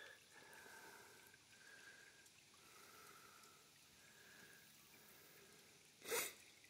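Near silence: faint outdoor background with thin high tones that come and go, broken by one short burst of noise about six seconds in.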